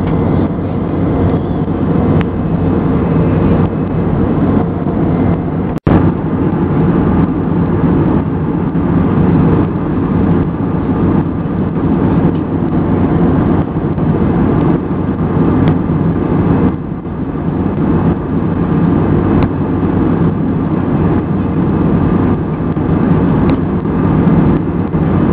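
Steady cabin noise inside an Airbus A320 in flight: the drone of the engines and the airflow, with a low hum. It cuts out for an instant about six seconds in.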